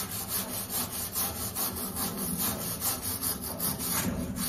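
Hand wire brush scrubbing a steel pipe fitting on a heating-oil tank in quick back-and-forth strokes, about four a second, scraping off old pipe dope.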